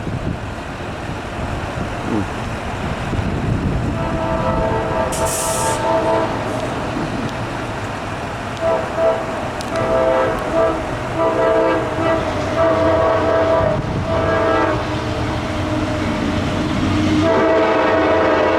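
Air horn of a GE AC44C6M diesel locomotive sounding a series of blasts, long and short: a long blast about four seconds in, several quick toots around nine to ten seconds, longer blasts after, and another long blast starting near the end. Under it runs the steady rumble of the passing train.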